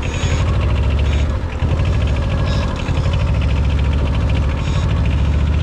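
Arctic Cat diesel ATV engine running steadily under load with a fast, even beat as the machine pushes through pond water. The engine note briefly dips twice.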